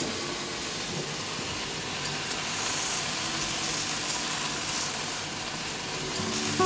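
Blueberry pancakes sizzling in a thinly oiled non-stick frying pan: a steady frying hiss.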